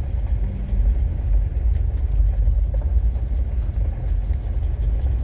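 Steady low rumble of a vehicle driving slowly on a rough dirt road, heard from inside the cab: engine and tyre noise, with a few faint light ticks.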